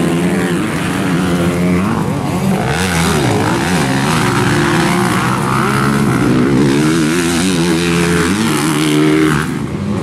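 Several 250-class motocross dirt bike engines revving hard, their overlapping pitches climbing and falling as the throttles open and close and gears change. The sound dips briefly near the end.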